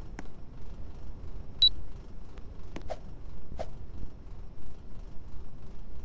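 One short high-pitched beep from an air conditioner, the kind it gives when it takes a remote-control command, about a second and a half in. Around it come a few sharp clicks over a steady low hum.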